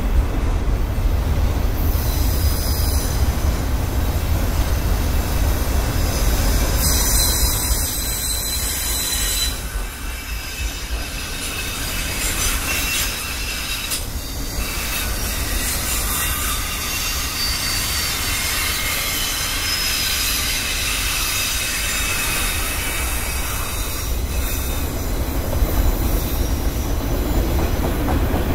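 Freight train of autorack cars rolling past: a steady rumble of wheels on rail with high-pitched wheel squeal that swells and fades.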